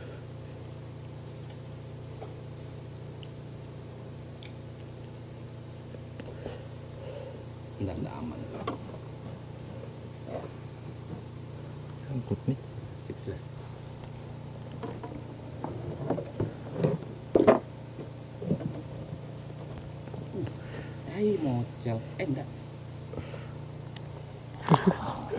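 Insects droning in a continuous high, steady buzz. A few brief faint knocks sound about two-thirds of the way through.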